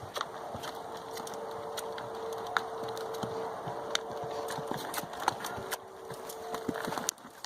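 A ridden horse moving, with scattered, irregular clicks and knocks from its hooves and tack. A faint steady hum runs underneath.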